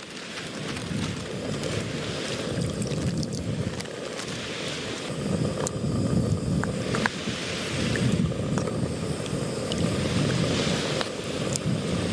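Sea waves washing in and out against the shore, with wind: a steady rushing that swells and ebbs every second or two, with a few faint clicks.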